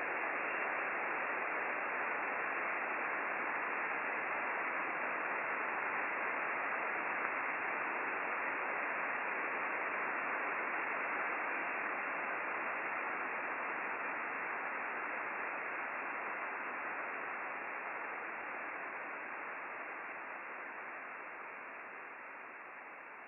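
Steady hiss of receiver static from an Icom IC-9700 transceiver in upper-sideband mode, tuned across the satellite downlink with no station on the frequency; the sound is cut off above the treble, as single-sideband receive audio is. It fades away over the last few seconds.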